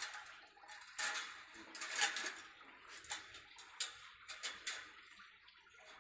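Galvanized chain-link wire mesh clinking and rattling as it is handled: a few short, sharp metallic clinks about a second apart, then several quieter ticks.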